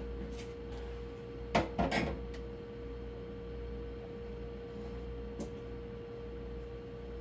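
Glass quart jars knocking and clinking a few times, about one and a half to two seconds in, as they are set into a refrigerator, with a couple of faint ticks later. A steady hum with a single clear tone runs underneath.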